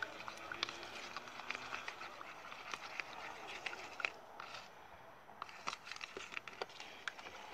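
Plastic spoon stirring a runny, not-yet-activated glue-and-water slime mixture in a plastic tub: irregular soft clicks and scrapes.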